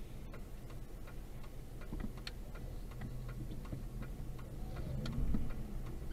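Car's turn-signal indicator ticking steadily inside the cabin, about three clicks a second, over a faint low hum of the engine and road.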